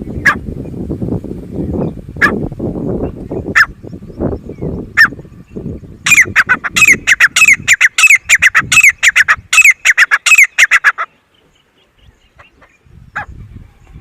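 Grey francolin calling: single sharp notes about every second and a half over a low rumbling noise, then a fast run of loud, repeated call notes for about five seconds that stops suddenly, followed by a few single notes.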